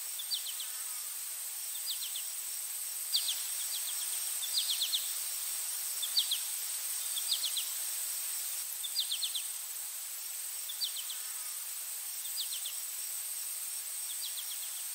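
Outdoor nature ambience: short high chirps, each a quick run of three or four notes, repeating irregularly about once a second over a steady hiss and a thin high whine.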